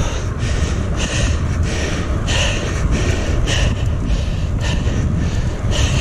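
A cyclist breathing hard, a hissing breath roughly once a second, over a steady low rumble of wind on the microphone.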